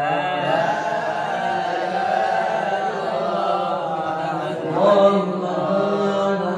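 A man reciting the Quran aloud in a slow melodic chant, holding long notes that rise and fall gently, with a louder, higher phrase about five seconds in.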